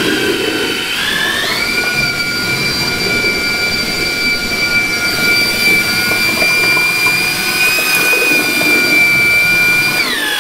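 Hand-held electric paddle mixer with a basket stirrer, mixing self-levelling compound in a bucket. The motor's whine climbs to speed about a second and a half in, runs steady, and starts to wind down at the very end.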